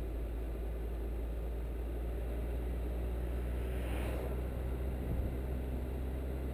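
Car driving along a road, heard through a bonnet-mounted camera: a steady low rumble of wind and road noise. About four seconds in there is a brief whoosh as it passes close by a parked car.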